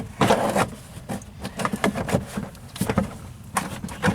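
Stiff plastic trim pieces being handled and worked into place, with a short scraping rustle near the start, then a run of irregular clicks and knocks.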